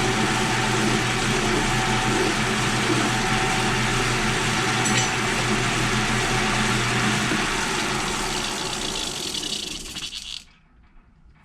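Electric shop power tool running steadily at a constant speed, then switched off and spinning down, stopping near the end.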